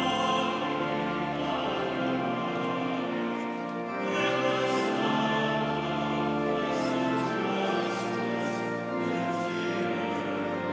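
Congregation singing a processional hymn with pipe organ accompaniment, sustained chords moving steadily from note to note.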